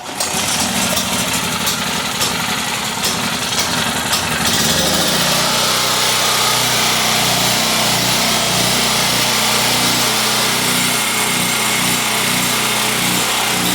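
Predator 4000 portable generator's single-cylinder four-stroke engine starting on choke and running; it catches at once and runs rough for about four to five seconds, then settles into a steady, even run.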